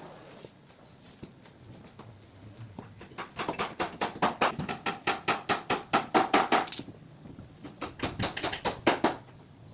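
Rapid sharp taps, several a second, beginning about three seconds in, breaking off briefly past the middle and then resuming.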